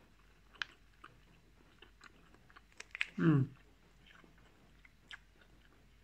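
Close-up chewing of moist spicy bean curd chips, with a few sharp clicks. A short hummed "mm" with falling pitch comes a little after three seconds in.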